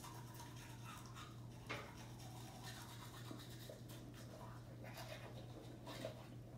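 Two children brushing their teeth with manual toothbrushes: faint, irregular scrubbing of bristles on teeth, over a steady low hum.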